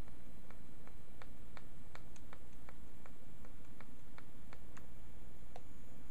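Light, regular ticking, about three ticks a second, over a steady low hum.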